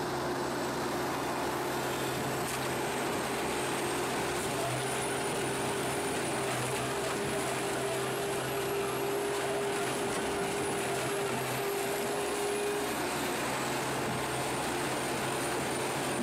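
Tracked Morbark HT1684 Predator stump shredder running steadily, a continuous heavy machine noise with a low steady hum and a faint high whine that climbs slightly in the middle and settles back near the end.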